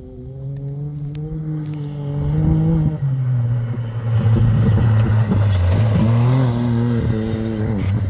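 Off-road race UTV engine coming past at speed, loudest midway, with tyre and dirt noise as it comes closest. Its pitch drops about three seconds in, climbs again a few seconds later and drops near the end as the throttle changes.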